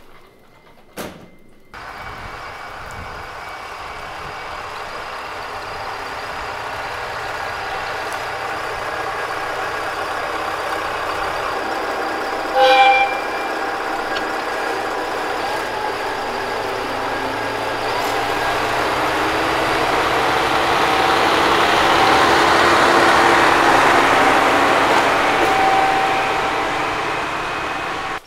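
Tsugaru 21 diesel railcar running and drawing nearer, its engine and wheel noise growing steadily louder until about three-quarters of the way through, then easing slightly. A single short horn toot sounds about halfway. A click comes about a second in.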